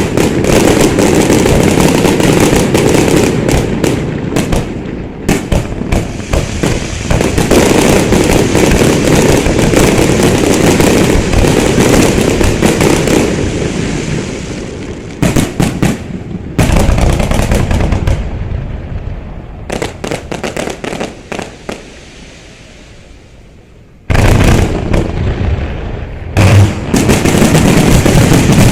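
Aerial firework shells bursting in a dense barrage, booms and rapid crackling. About two-thirds through, the barrage thins out to a fading crackle. A few seconds before the end, a loud new barrage starts suddenly.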